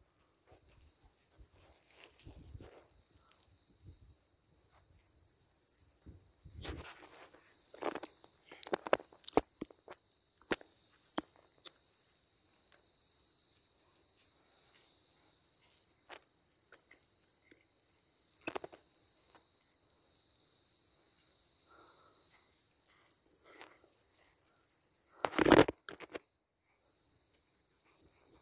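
Steady high-pitched insect chorus buzzing without a break, growing louder about a quarter of the way in. Scattered footsteps and knocks on dry, clumpy soil, with one louder knock near the end.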